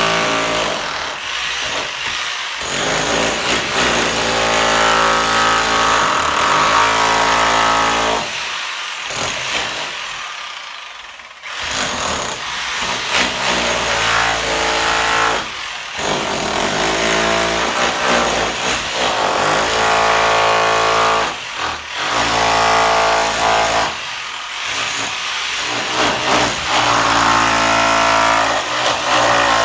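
A motor-driven machine running loudly, its pitch and load changing repeatedly, easing off briefly several times.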